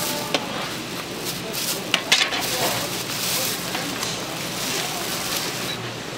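Food-stall work noise: a few sharp knocks over a steady crackling rustle, with a low hum underneath.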